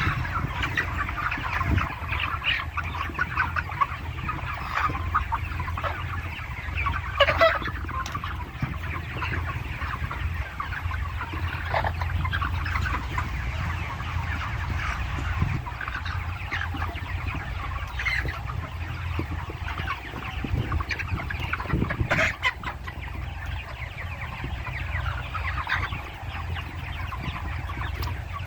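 A large flock of broiler chickens clucking and chattering in a dense, continuous din, with a few louder calls standing out, over a steady low hum.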